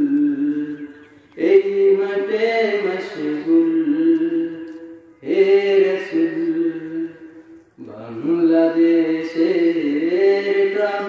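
Young male voice singing an unaccompanied Bengali Islamic devotional song (a naat to the Prophet), in long drawn-out melodic phrases with brief breaths between them.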